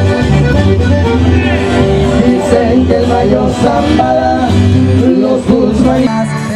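A live band playing: accordion over acoustic guitar and bass, with a steady bass line. The music changes about six seconds in.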